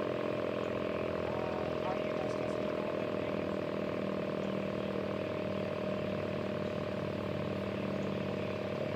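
ACA Banshee mechanical outdoor warning siren sounding a steady, even tone.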